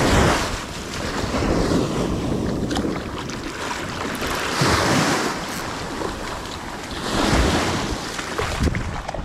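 Small waves breaking and washing up a sandy beach in the shore break, the wash surging a few times.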